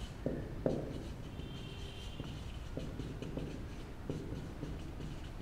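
Marker pen writing on a whiteboard: faint scratching strokes and small taps of the tip as letters are written.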